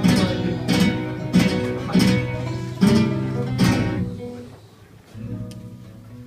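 Flamenco guitar strumming a series of sharp chords, about one every 0.7 seconds. Around four seconds in they stop and the last chord rings out, leaving a few quieter notes.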